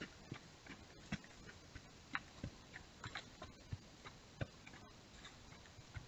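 Faint irregular clicks and small snaps over a steady hiss: a deer walking and feeding on dry ground.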